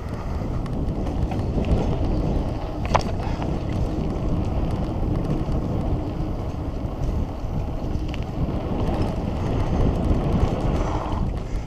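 Wind rushing over the microphone of a mountain bike descending dirt singletrack, with the rumble of knobby tyres on the trail and the bike's light rattles and clicks.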